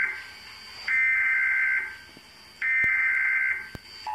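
Emergency Alert System header tones: three loud screeching digital data bursts of about a second each, with short pauses between them, announcing an emergency broadcast. The steady two-tone attention signal starts right at the end.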